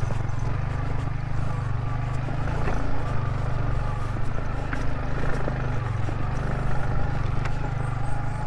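Single-cylinder motorcycle engine running steadily under load as the bike rides slowly over a rough, rocky track, with a few small knocks from the bike over the stones.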